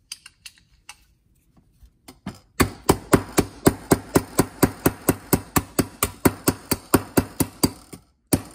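Hammer blows on a BMW fuel filter's aluminium housing and its plastic cover. A few light taps come first; then, from about two and a half seconds in, sharp blows follow steadily at about three a second, with a short break near the end.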